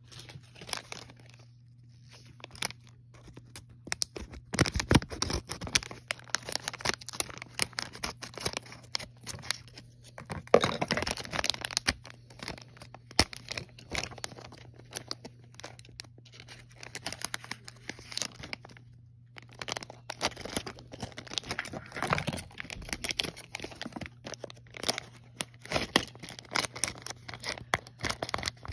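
Foil LEGO Minifigures blind-bag packet crinkling and crackling as hands squeeze and handle it, in irregular spells with brief pauses.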